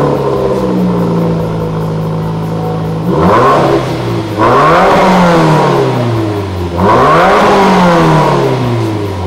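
Subaru WRX's turbocharged flat-four running through a custom stainless mandrel-bent exhaust with a 3-inch Magnaflow resonator and quad tips. It idles for about three seconds, then is revved three times, each rev climbing and falling back.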